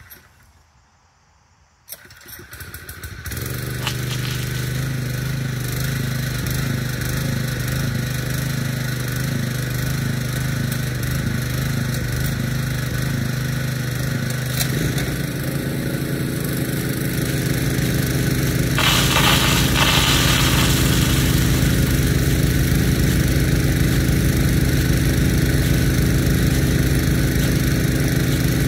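A pump engine starts about two seconds in and settles into a steady run, with more engine tones joining about halfway through as the load or a second engine comes in. A brief burst of hissing rises around two-thirds of the way through.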